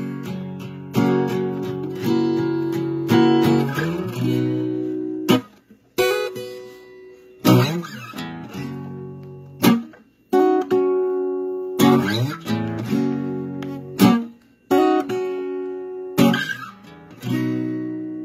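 Solo acoustic guitar playing an instrumental intro: chords struck and left to ring and fade, with short breaks between phrases.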